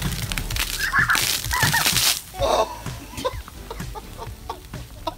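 Diet Coke and Mentos fountains erupting, with a hissing gush of spraying foam for about a second starting about a second in, then splashing and dripping onto a plastic table. Short high excited squeals come from children.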